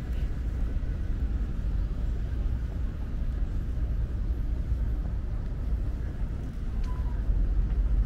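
Outdoor urban ambience: a steady low rumble with a faint hiss above it.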